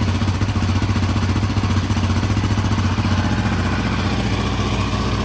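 Yamaha Raptor 700R's single-cylinder four-stroke engine idling steadily through its stock exhaust.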